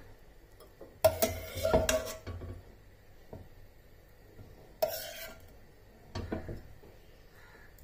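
Metal ladle clinking and scraping against a stainless steel pot while spooning masala onto rice, in three short bursts of clatter with a ringing note.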